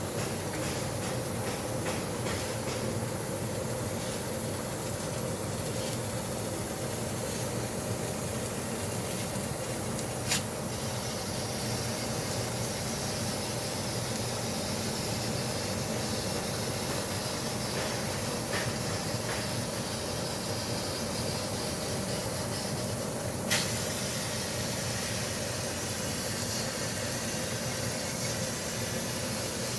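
Fiber laser cutting machine cutting 8 mm thick metal plate: a steady hiss with a constant hum underneath, broken by two sharp pops, about ten seconds in and again some thirteen seconds later.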